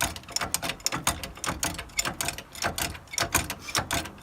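Hydraulic bottle jack being pumped to raise a pickup truck, making quick, irregular metallic clicks, several a second.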